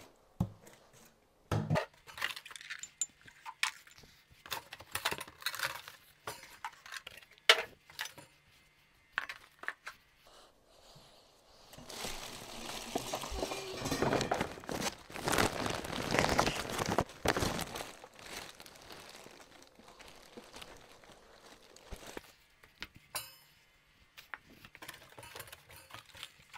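Cardboard box and loose parts being handled, with scattered knocks and clatters. About twelve seconds in, a few seconds of plastic wrapping crinkling as a wrapped part is lifted out of the box.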